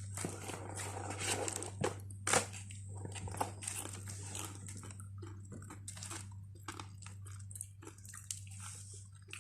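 Person biting and chewing crispy fried chicken close to the microphone: irregular crunches and wet chewing noises, busier in the first half and sparser later.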